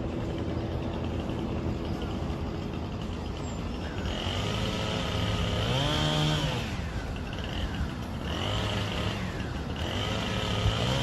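Motor vehicle driving, with steady road noise. From a few seconds in, the engine's pitch rises, holds and falls away twice.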